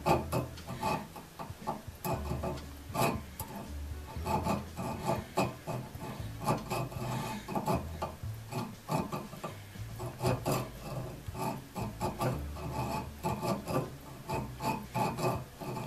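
Small file working the steel threads of an auger bit's pilot screw in many short strokes with brief pauses, sharpening the thread edges so they cut a clean thread track in the wood.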